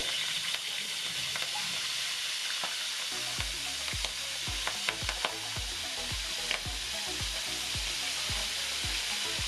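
Shrimp frying in hot oil in an aluminium wok: a steady loud sizzle. From about three seconds in it carries frequent sharp pops and knocks.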